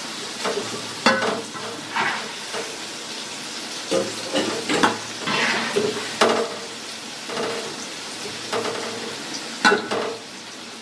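Food sizzling in a frying pan while a metal spatula stirs it, scraping and knocking against the pan at irregular intervals, a few strokes leaving a brief ring.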